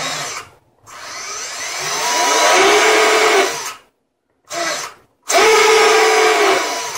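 Racerstar 2403 brushless motors on a racing quadcopter, spinning without propellers as the throttle is raised: a whine that climbs in pitch over about a second and a half, holds, then cuts off. A short blip follows, then a second steady whine near the end.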